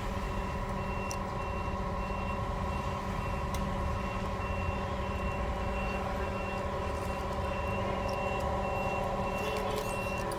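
Steady electrical hum from the repair bench, with a short high electronic beep repeating about twice a second from about a second in.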